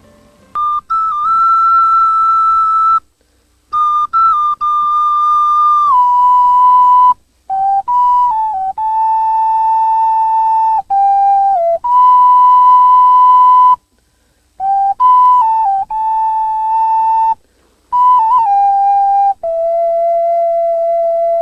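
Solo flute playing a slow, unaccompanied melody of long held notes separated by breath pauses. Many notes begin with a quick ornamental flick, and the line drifts downward to a long low last note.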